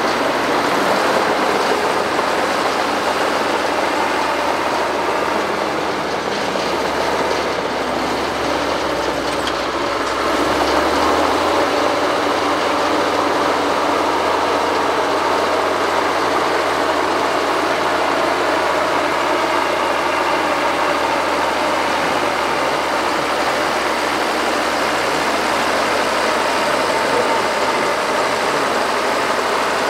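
Excavator engines running steadily as the machines dig in mud, a continuous heavy drone. A low engine note rises and strengthens about ten seconds in.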